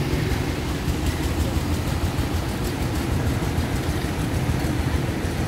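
Fire truck engine running steadily as a low, even drone, driving the pump that feeds the hoses.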